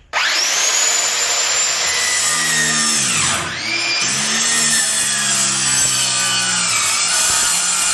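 Electric power saw starting up and cutting through rotted subfloor with a wood-cutting blade; the motor pitch sags sharply about three seconds in as the blade is loaded, then recovers. The blade is one the user finds no good and dull.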